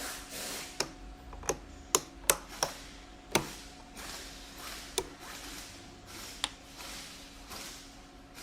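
Irregular sharp clicks and knocks of hand tools and parts being handled while working on a BMW M52TU/M54 intake manifold, most of them in the first few seconds. A faint steady hum runs underneath.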